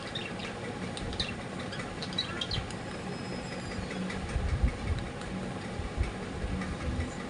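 Steel spoon scraping and clinking against a small stainless steel bowl as baby cereal is stirred into milk, with short high squeaks mostly in the first few seconds and a few dull knocks near the middle, over a steady low hum.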